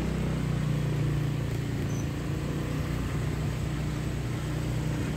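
Motorcycle engine running steadily while riding, a constant low drone, with a steady hiss of road and wind noise.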